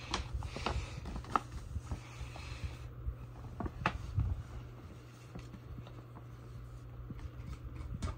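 Paper gift bag and tissue paper rustling and crinkling as a hand rummages inside, with scattered sharp handling clicks, busiest in the first few seconds, over a steady low hum.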